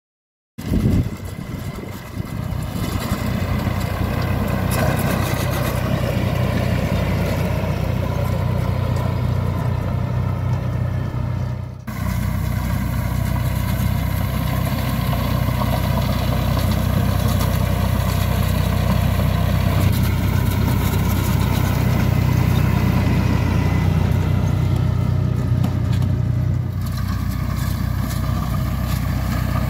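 Fendt 209P tractor's diesel engine running steadily as it pulls a ROC RT380 belt rake through cut ryegrass at field speed. It comes in about half a second in, with a brief dip in level about twelve seconds in.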